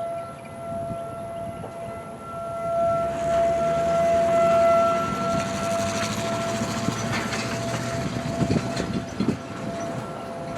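Distant outdoor warning siren sounding a steady tone. It swells and then fades as the siren rotates. A low rumble runs underneath.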